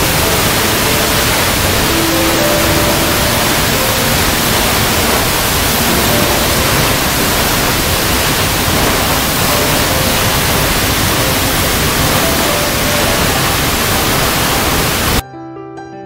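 Steady, loud rush of a waterfall plunging into a pool, with faint music notes beneath it. About a second before the end the rush cuts off abruptly and solo piano music takes over.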